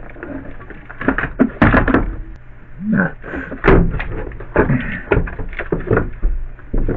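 Irregular knocks and clunks of the windshield wiper housing being worked into place in a car's cowl, bumping against the body and wiring harnesses.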